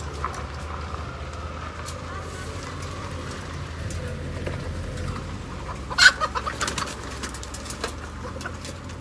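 Chickens clucking, with a loud sharp squawk about six seconds in followed by a quick run of short clucks.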